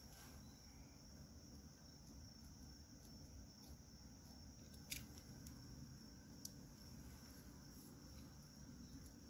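Near silence: a snap-off utility knife blade tracing around numbers cut in painter's tape on a dumbbell, heard only as a few faint ticks. A steady faint high-pitched tone runs underneath.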